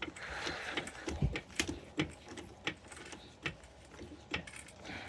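Floor jack being set under the car and worked: an irregular run of sharp metallic clicks and knocks, about two or three a second, with a low thump about a second in.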